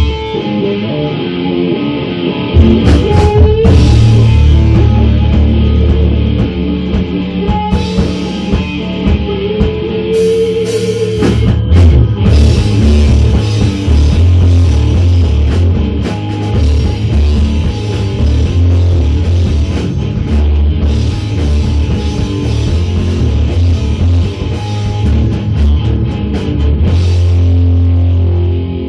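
Rock band playing loudly: guitar over a drum kit.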